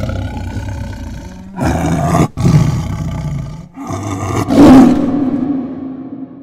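Bengal tiger roaring: a run of deep, loud roars with short breaks between them. The last is the loudest, about four and a half seconds in, and it fades away into a low hum.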